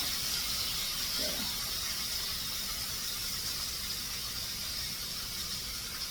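Bacon frying in sausage grease in a pan, a steady high sizzle.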